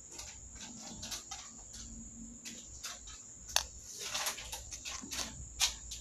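Scattered light clicks and short rustles of small tools and circuit-board parts being handled during a mixer repair, the sharpest about three and a half seconds in, over a steady faint high-pitched whine.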